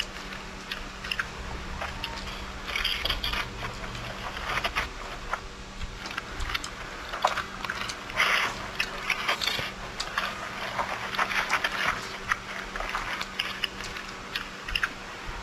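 Two people chewing and biting into chicken and rice close to the microphone: a steady run of small wet mouth clicks and crackles, with a few louder bites.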